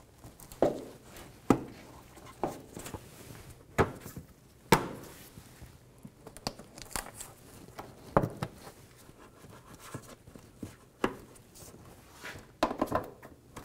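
Plastic push-pin retainers being pressed into a pickup's plastic inner fender liner: about a dozen sharp clicks and knocks at irregular intervals, the loudest a little under five seconds in.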